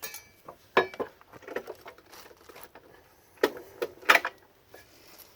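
Several sharp metal clanks and clinks, some ringing briefly, from a steel lawn mower blade and its mounting hardware being handled. The loudest come about a second in and again around three and a half to four seconds in.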